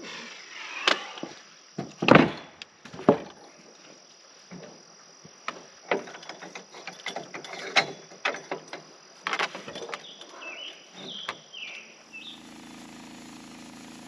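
Boards and steel clattering on a Norwood portable band sawmill as lumber is set down and the log is clamped on the mill bed: a string of knocks and clanks, the loudest about two and three seconds in. About twelve seconds in, the sawmill's engine comes on and runs with a steady hum.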